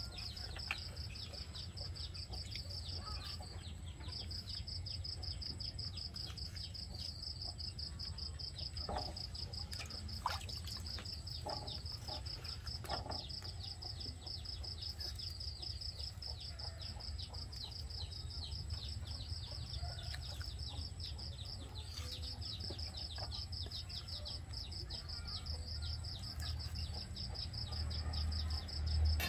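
Insects trilling steadily in a high pulsing chorus that breaks off briefly twice, over a low steady hum. A few faint knocks of a knife on a wooden chopping board, and one louder thump near the end.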